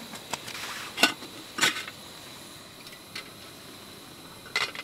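Camp cookware clinking and knocking as a cookpot is handled and set on a gas canister stove, about five sharp knocks with the loudest two close together about a second in, over the steady hiss of the stove's burner.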